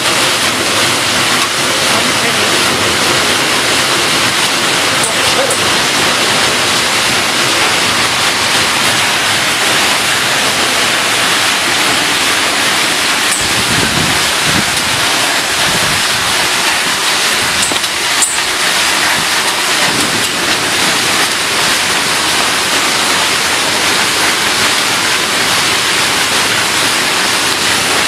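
Chili stem cutting machine and its conveyor running, heard as a steady, loud rushing noise.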